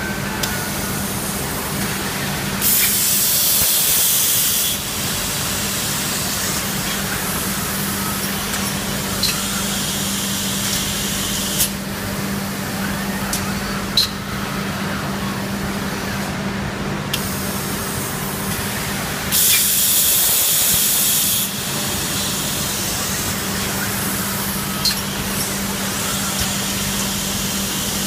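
Robotic glass-handling cell running with a steady machine hum and a constant low tone, broken twice by a loud hiss of compressed air lasting about two seconds, with a few sharp clicks in between.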